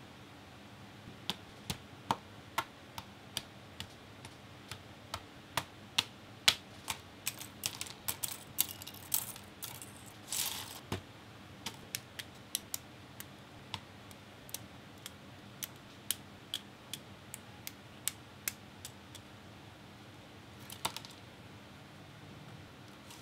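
Hard plastic parts of a Master Grade 00 Qan[T] Full Saber model kit clicking and tapping as they are handled, fitted together and set down: irregular sharp clicks, about one or two a second, busiest around the middle with a brief rustle, then fewer toward the end.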